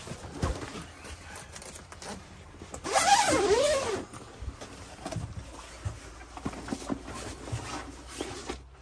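Zipper of a soft camouflage rifle case being pulled open, a loud zipping stretch with wavering pitch about three seconds in, amid rustling fabric and light clicks as the rifle is handled and drawn out.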